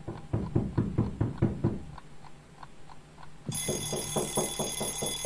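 Hip hop instrumental beat: quick, even percussion hits over a steady bass note, with a high bell-like synth ringing in about three and a half seconds in.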